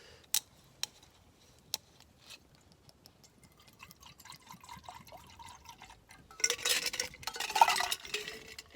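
Drink being mixed in a glass over ice for a whisky highball: a few sharp clinks early on, a faint trickling pour in the middle, then a louder, splashing pour about six seconds in that lasts two seconds or so.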